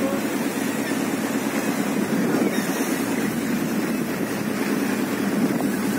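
Boat engine running steadily with a low hum, under a rushing noise of wind and water.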